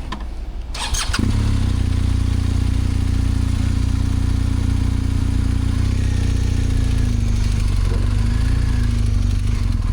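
BMW R 1250 GS boxer-twin engine starting about a second in, then running steadily at low revs, its pitch wavering slightly near the end.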